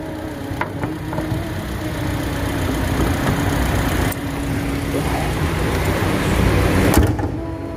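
Kia Sportage engine idling steadily, then a sharp knock about seven seconds in as the bonnet comes down. After the knock the idle sounds more muffled.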